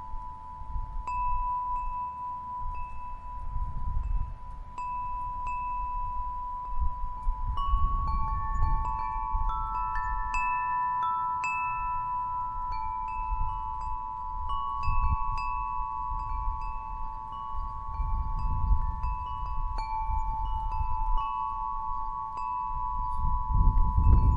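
Wind chimes ringing: several long overlapping tones that hold and layer, with light high pings struck every second or so. Beneath them runs a low rumble that swells and fades.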